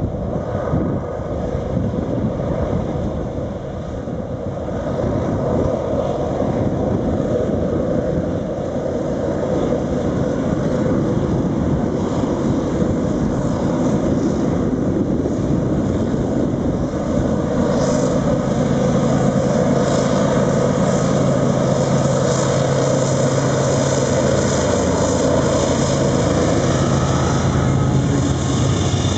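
A lashup of diesel freight locomotives approaching and passing close underneath, their engines running in a steady drone that grows louder as they near.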